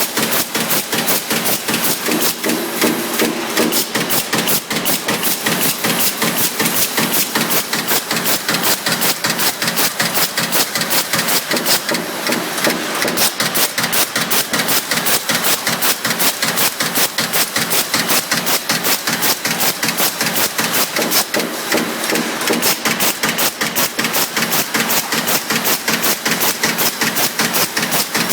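Sheet-metal press on a CNC sheet-feed line stroking rapidly and steadily, a fast even train of metallic impacts at several strokes a second over a continuous machine hum.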